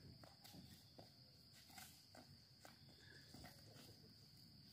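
Near silence outdoors: a faint, steady, high-pitched insect chorus, typical of crickets at dusk, with a few faint light taps.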